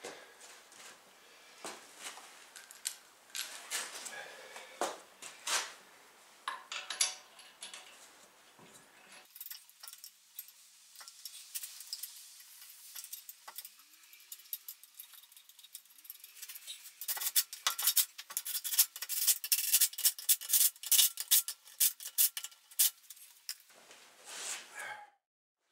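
Light metallic clicks and rubbing from hand work at a car's rear wheel as it is refitted. Scattered clicks give way to a quieter stretch, then a dense run of quick clicks for several seconds about two-thirds of the way in.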